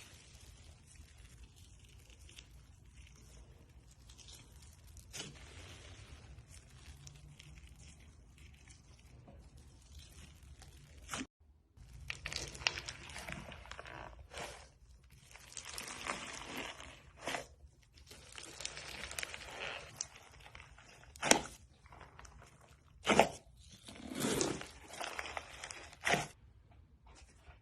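Close-up crackling and crunching of a handled material. It is faint at first, then denser after a brief break, with several sharp, loud cracks near the end.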